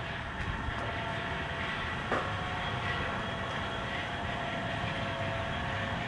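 A steady mechanical hum with several held tones over a background of street noise, and one light knock about two seconds in.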